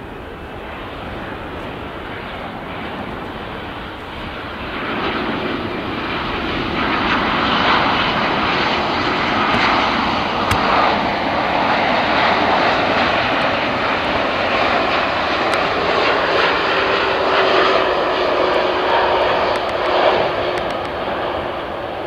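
Boeing 787-9 Dreamliner's GE GEnx-1B turbofan engines on final approach to land, gear down. The jet noise is a steady rush that swells from about four seconds in as the airliner draws near, stays loud through the middle, and eases slightly near the end.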